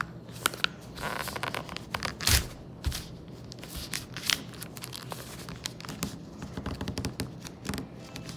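A sheet of paper being folded and creased by hand: irregular crackling rustles and sharp scrapes as fingers press and run along the fold, loudest about two and four seconds in.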